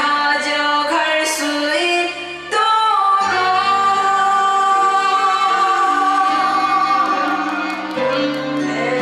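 A female singer sings a trot-style song over backing music, holding one long, slightly wavering note from about two and a half seconds in until about eight seconds, then the accompaniment carries on.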